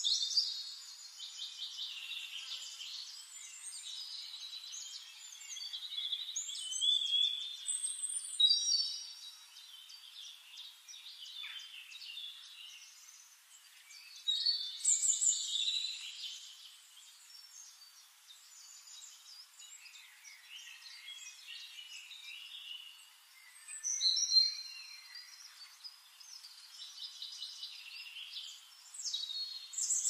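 Songbirds chirping and twittering in quick, high-pitched phrases that overlap almost without a break, swelling into louder bouts every several seconds.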